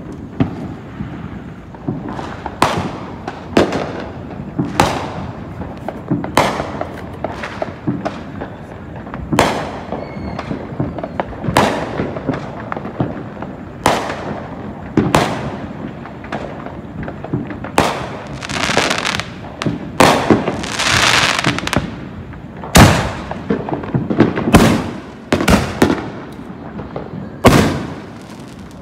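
Aerial fireworks going off overhead: an irregular string of sharp bangs about one a second, with a few seconds of steady hissing about two-thirds through.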